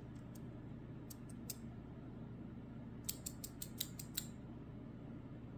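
Faint small metallic clicks from the brass plug of a Lockwood Twin lock being worked by hand to free a stuck key pin that won't come out: a few scattered clicks in the first second and a half, then a quick run of about eight clicks around three to four seconds in.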